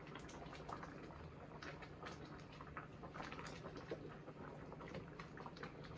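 Pot of stew peas simmering, with faint, irregular small pops and clicks of bubbles breaking over a low steady hum.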